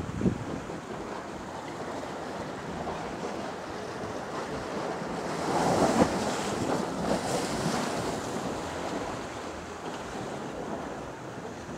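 Sea surf washing against a rocky shoreline, with wind buffeting the microphone; the wash swells louder about halfway through, then eases off.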